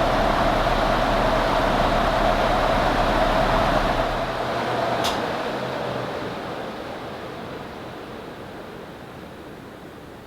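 Vintage ceiling fans running with a steady motor hum that cuts off about four seconds in. A sharp click follows, and the whoosh of the blades fades as the fans spin down.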